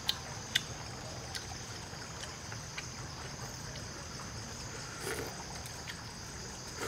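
Steady high insect drone over the low trickle of a forest stream, with a few sharp clicks in the first second and a soft rustle about five seconds in.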